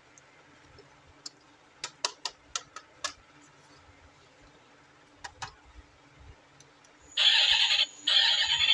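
A few sharp clicks of plastic toy parts being handled, then about seven seconds in a loud electronic toy sound effect starts, breaks off briefly and starts again.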